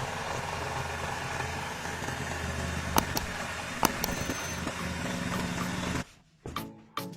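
Freshly restored Honda GX160 single-cylinder four-stroke engine running steadily, with two sharp clicks about three and four seconds in. It cuts off abruptly about six seconds in and music starts.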